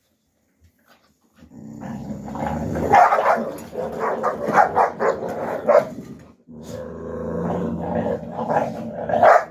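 Alabai puppies growling at each other as they scuffle at the food bowls, with sharp bark-like yaps cutting through. It starts about one and a half seconds in, breaks off briefly past the middle, then resumes, with the loudest outburst near the end.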